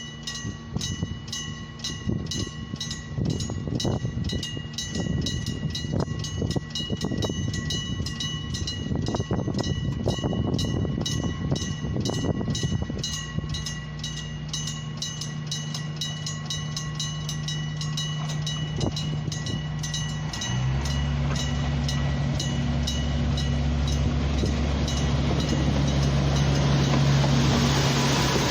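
Railway level-crossing warning alarm ringing with rapid, evenly spaced strikes, over the low running of a diesel train's engine. About twenty seconds in, the diesel engine grows much louder and keeps building.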